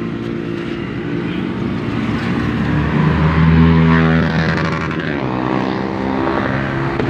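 Third-generation Honda CR-V engine running, its pitch climbing about two seconds in and dropping back just after the middle as it is revved and released. It is being run to bleed air from the coolant after a radiator replacement.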